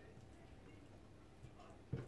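Quiet, then near the end a single knock of a kitchen knife cutting through raw chicken breast onto a wooden cutting board.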